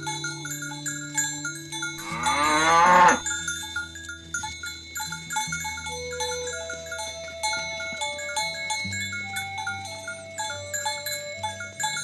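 A cow moos once, loudly, for about a second, a couple of seconds in. Underneath runs light background music of repeating bell-like notes over held low tones.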